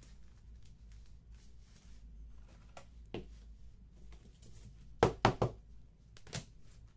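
Trading cards and plastic card sleeves being handled on a table: a few soft clicks, then a quick run of three or four sharp taps about five seconds in and one more shortly after.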